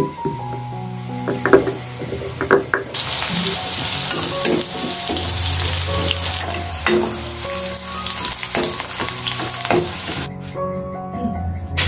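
Food frying in hot oil, a dense sizzle that starts about three seconds in and cuts off sharply near the end, over soft background music, with a few sharp clicks before the sizzle begins.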